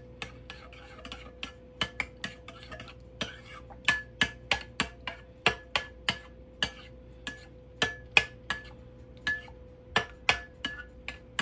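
Metal spoon stirring a thick barbecue sauce and grape jelly glaze in a ceramic bowl, clinking against the bowl about two to three times a second, many strokes with a short ringing note.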